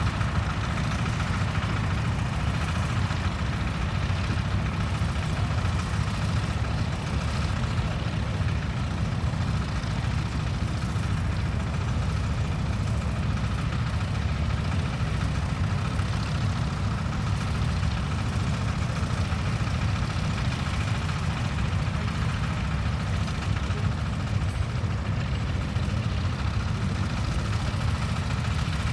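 A tractor engine running steadily at low revs, with no change in pace.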